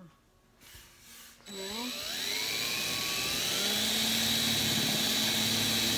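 Cordless drill starting about a second and a half in, its motor whine rising in pitch as it spins up, then running steadily as the bit bores a handle hole through a painted wooden drawer front.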